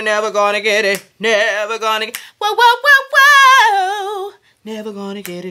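A woman singing a cappella with a heavy vibrato, in long held phrases. The highest, loudest note comes about three seconds in, then lower, shorter phrases follow near the end.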